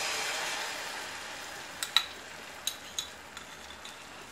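Beaten egg mixture sizzling as it is poured into a hot, oiled square nonstick pan. The sizzle is loudest at first and slowly dies down, with a few light clicks about two and three seconds in.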